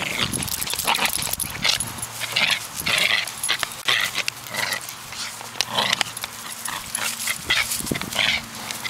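Silky Terrier making excited sounds in short bursts about every half second as it hunts through the grass for squirrels.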